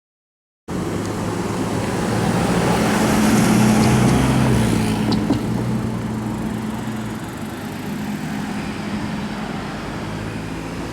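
A motor vehicle's engine running as it passes, cutting in abruptly less than a second in, growing louder for a few seconds and then easing off.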